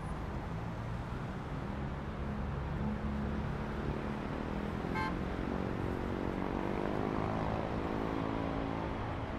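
Road traffic on a busy multi-lane city street: a steady rumble of cars and buses passing, with one vehicle's engine rising in pitch as it accelerates from about four seconds in. A brief sharp click about halfway through.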